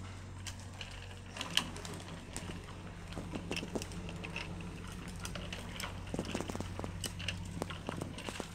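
Child's bicycle with training wheels rolling over brick paving, giving light, irregular clicks and rattles.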